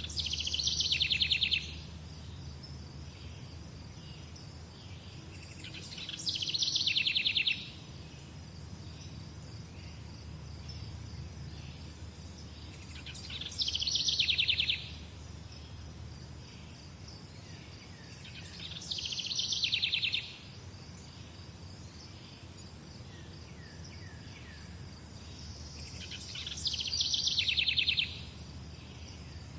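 A songbird repeating the same short, fast trill five times, about every six seconds, each phrase dropping in pitch as it goes. A steady low rumble runs underneath.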